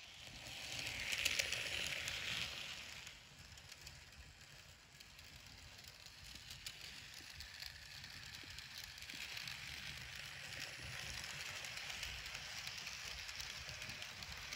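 Model trains running on the layout track: a soft rushing rattle of small wheels and motor, crackly with fine clicks. It swells about a second in and fades, then builds again as the Dapol A4 Mallard, fitted with a Tramfabriek motor, approaches and passes with its coaches.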